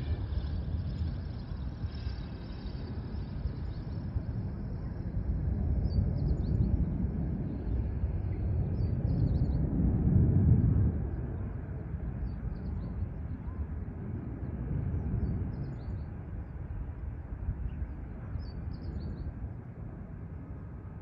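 Jet airliner's engines heard from far off as it climbs away after takeoff: a low, uneven rumble that swells to its loudest about halfway through and then fades. Short bird chirps come through now and then.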